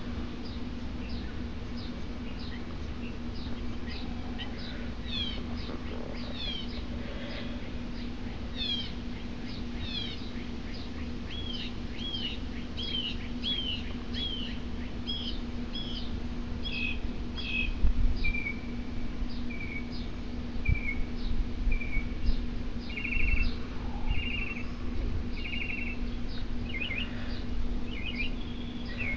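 Several small birds chirping and calling: many quick down-slurred chirps, with runs of repeated notes and short trills in the second half. A steady low hum runs underneath, and a few low bumps break in.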